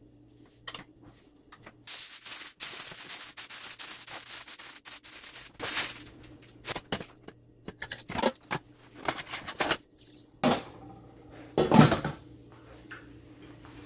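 Aluminium foil crinkling for a few seconds as it is handled, then scattered clinks and scrapes of cookware, the loudest a clatter near the end as a glass lid is set onto a stainless steel pot.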